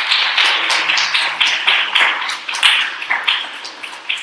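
Small audience applauding with dense hand clapping that thins out toward the end into a few separate claps.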